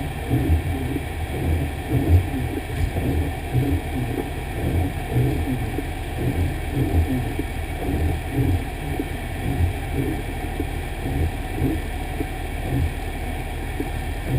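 Fire engine running, a steady low engine sound with uneven low-pitched pulsing throughout.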